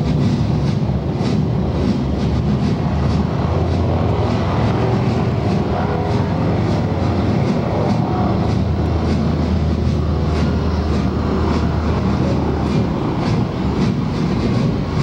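Vehicle engines running in a stunt show, a loud continuous rumble with a steady low hum through most of the middle that stops near the end.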